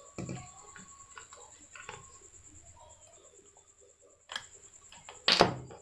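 Faint clicks and short scrapes of hand tools working on a circuit board as amplifier ICs are taken off, with a sharper clack about four seconds in and a louder one near the end.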